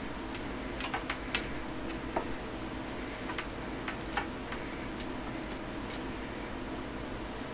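A kitten batting a plastic pen around on a desktop: irregular light clicks and taps, the sharpest about a second and a half in, over a steady low hum.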